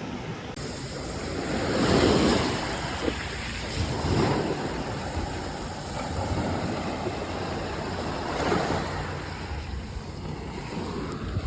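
Small waves breaking and washing up on the shore, swelling about every few seconds.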